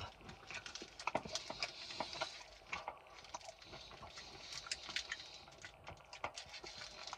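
A person chewing crispy, biscuit-like chocolate close to the microphone: small, irregular crunches and mouth clicks.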